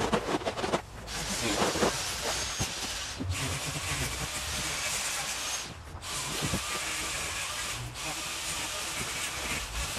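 Steady hissing that breaks off briefly about three seconds and six seconds in. There are a few knocks in the first couple of seconds.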